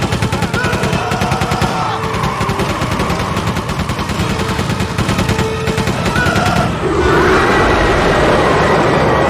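Sustained rapid machine-gun fire from a biplane's mounted machine gun, over film music. About seven seconds in the firing stops and a loud, steady rushing noise of the sandstorm takes over.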